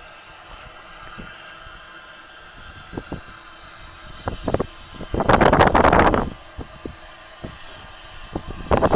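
Peckett 0-4-0 steam tank engine running slowly with a carriage: scattered short clicks and knocks over a steady background. A loud rush of noise comes about five seconds in and lasts about a second, and another starts near the end.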